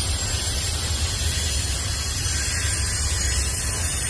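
Double-stack intermodal freight train's well cars rolling past: a steady low rumble with a high hiss of steel wheels on rail.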